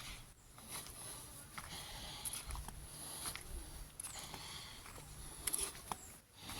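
Footsteps of a person walking on an outdoor path, soft irregular steps about one or two a second, over a faint steady high-pitched hum.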